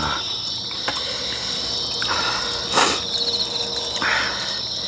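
Crickets chirping steadily, with soft chewing and eating sounds close by and one sharp click nearly three seconds in.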